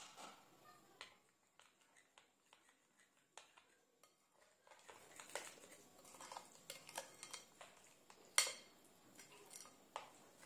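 Metal spoon clinking and scraping against a glass mixing bowl while stirring oil into flour for batter. Light scattered clicks grow busier about halfway through, with one sharper clink late on.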